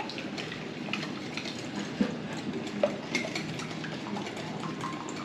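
Light, irregular clicks and taps of a utensil against a mixing bowl over a steady low hum, with the sharpest taps about two and three seconds in.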